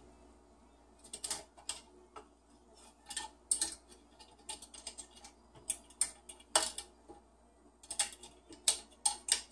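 Moluccan cockatoo's beak and feet clicking, tapping and scraping on the metal lantern top of its lighthouse perch, in irregular sharp taps starting about a second in.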